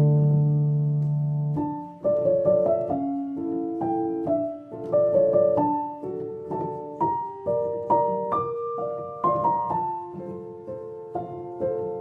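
Background piano music: a held chord fading away, then from about two seconds in a slow melody of single notes, each struck and ringing out.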